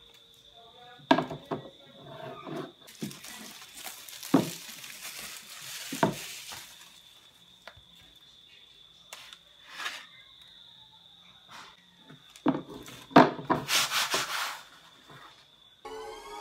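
Handling noise of a new stretched canvas on a wooden table: several sharp knocks where it is set down and bumped, with stretches of rubbing and rustling as it is slid and turned. A thin steady high whine runs underneath and stops near the end.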